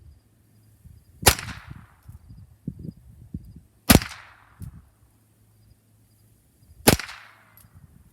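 Three single shots from an H&K MP5 .22 LR rifle, spaced about two and a half to three seconds apart, each followed by a short echo.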